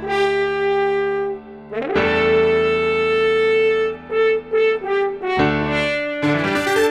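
Background music: a brass-like lead melody of held notes over sustained low chords.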